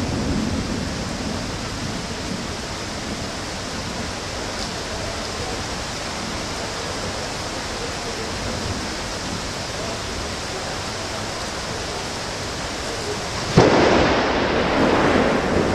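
Steady rain hiss during a thunderstorm. Near the end a sudden loud thunderclap breaks in and keeps rumbling.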